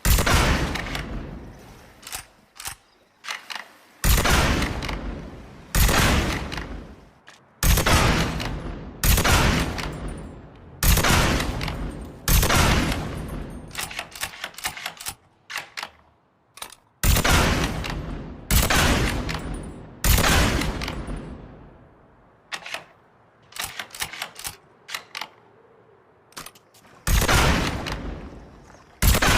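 Rifle shots fired one at a time, about a dozen with gaps of one to five seconds, each followed by a long echoing tail. Lighter mechanical clicks fall between some of the shots.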